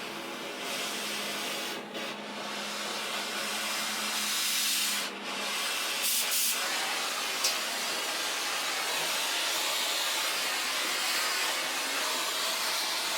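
Cutting torch hissing steadily as it cuts through steel plate, with two brief dips and a sharp tick partway through.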